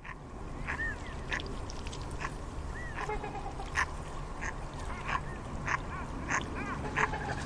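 A flock of waterfowl calling: many short quacks and honks, some rising and falling, following one another every fraction of a second over a steady low background noise.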